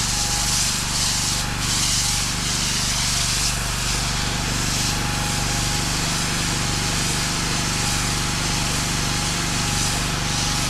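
Fuel-driven pressure washer engine running steadily under water spray from a low-pressure rinse nozzle; the spray hiss swells and eases a few times. The engine is sounding a little hunty, which the operator takes to mean it is about to run out of fuel.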